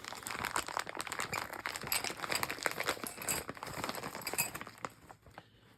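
Plastic packaging crinkling and clicking as it is worked open by hand, a dense run of small crackles that dies away near the end.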